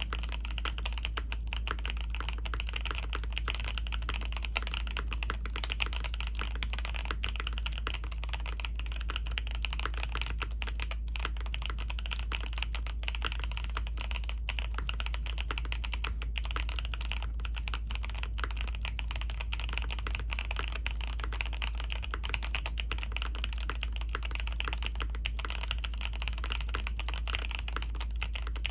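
Continuous fast typing on a mechanical keyboard fitted with Fantasy Virus switches: dense, even keystroke clacks without a pause, over a steady low hum.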